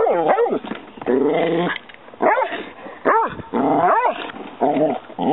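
A dog whining and yelping over catfish in a cooler, eager to get at the fish. Short cries that rise and fall in pitch alternate with longer held whines, about half a dozen in all.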